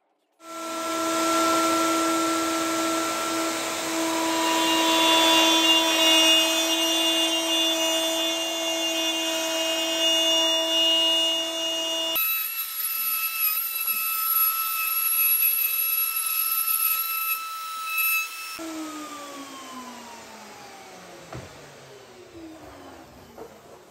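Festool plunge router starting up and cutting a straight line through solid cherry, with a steady high whine. About two-thirds of the way in the motor is switched off, and its pitch falls as it spins down.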